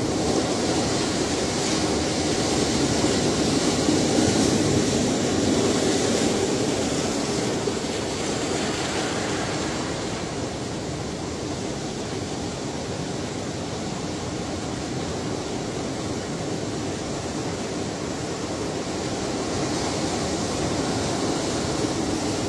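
Ocean surf washing in as a steady rush of noise, swelling to a peak about four seconds in and easing back, then building again near the end.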